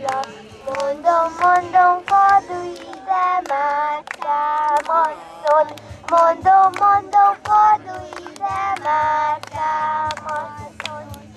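A young girl singing a song, amplified through a handheld microphone, with children clapping a steady beat along with her.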